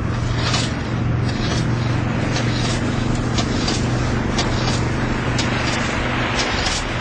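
A steady engine hum with scattered sharp clicks and knocks over it.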